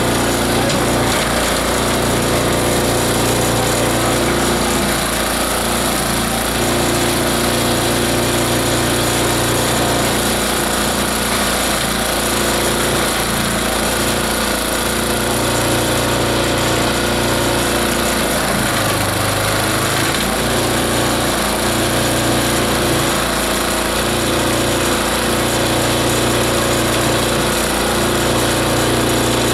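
Multi-blade shredder-grinder running steadily under load, its blades grinding organic material into fine ground output. A constant machine noise with a steady low hum.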